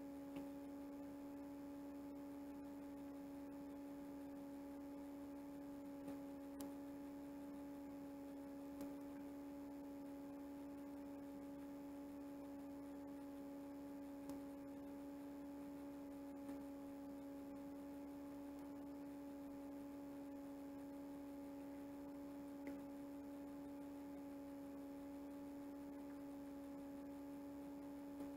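A steady, faint hum holding one low pitch with a couple of higher overtones, with a few soft, faint ticks scattered through it.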